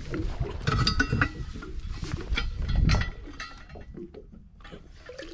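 Irregular knocks and metallic clinks with a brief ringing on a metal boat's bow as the anchor is readied and handled in the anchor well to be dropped. The clinks are loudest and ring most about a second in, and again near three seconds.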